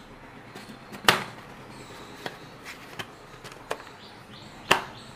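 Plastic blender jar and lid being fitted and locked onto the base: a few sharp plastic clicks and knocks, the loudest about a second in and another near the end, with the motor not yet running.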